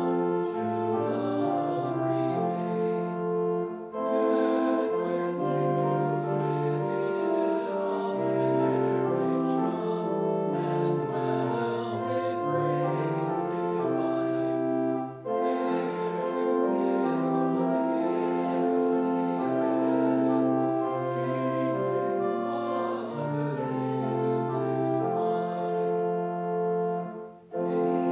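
Church organ playing a hymn in slow, held chords, with short breaks between phrases about 4, 15 and 27 seconds in.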